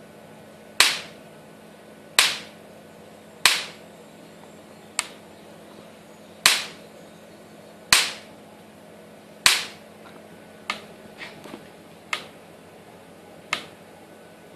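Electric fence energizer firing its high-voltage pulses, a sharp crack about every second and a half, with a faint steady hum underneath. The last few cracks, from about ten seconds in, are weaker and come unevenly.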